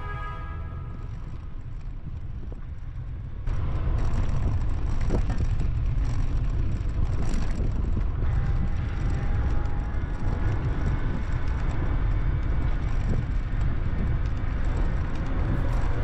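Wind buffeting the microphone and road rumble from a moving bicycle, a dense low rumble that steps up louder about three and a half seconds in.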